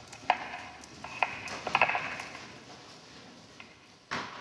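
A few sharp clinks with a short ring, the loudest three close together about two seconds in, then a short rush of noise about four seconds in.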